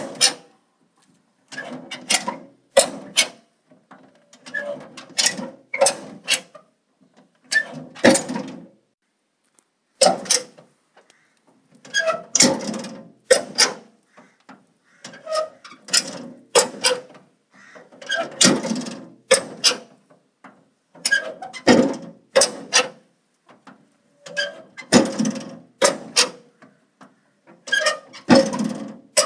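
Metal door being worked open and shut over and over: squeaking hinges and sharp metallic clanks and clicks, coming in clusters every second or two.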